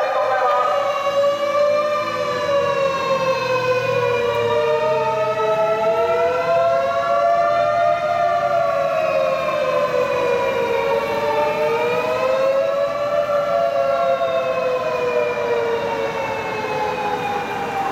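Japanese fire engines' sirens wailing on an emergency run: at least two slow rising-and-falling wails overlap, out of step with each other.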